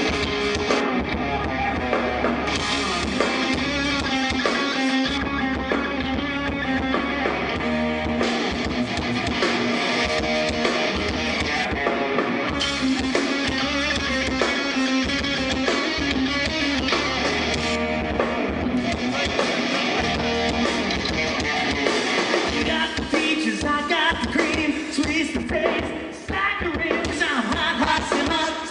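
Live rock band playing through a PA: distorted electric guitars over a drum kit and bass, in a stretch of the song without lead vocals.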